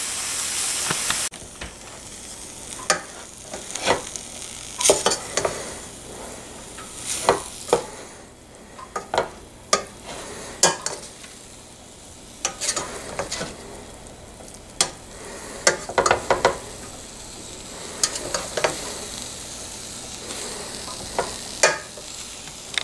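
Ground venison sizzling as it browns in a stainless steel skillet, with a spatula stirring and scraping against the pan in irregular strokes. The sizzle is louder for about the first second, then steadier and softer.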